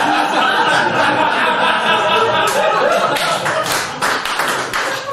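Audience laughing hard at a punchline, with scattered clapping joining in about three seconds in and building toward applause.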